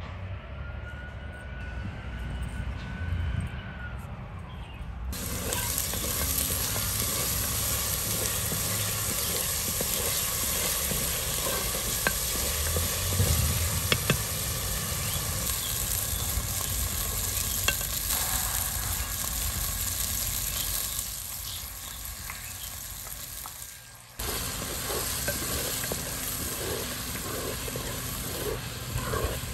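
Masala sizzling in hot oil in a clay pot and being stirred with a wooden spatula, a steady frying hiss with small crackles that starts about five seconds in. It breaks off briefly near the end and then resumes.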